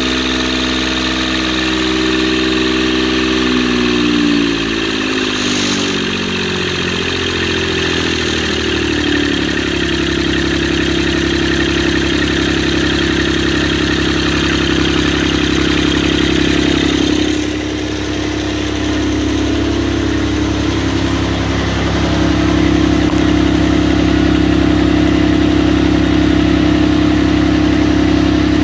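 Kubota D1105 three-cylinder diesel engine running. Its speed shifts over the first several seconds, then it runs steadily, with a brief dip a little past the middle and a slightly louder steady run after that.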